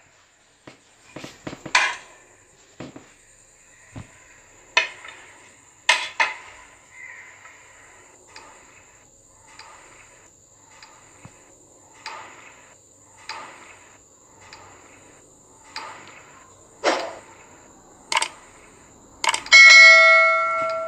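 A serving spoon clinks and knocks against the pot and a ceramic plate as rice is dished out, irregularly about once a second, over a faint steady high whine. Near the end there is a click and then a ringing notification-bell chime from a subscribe-button sound effect, the loudest sound of all.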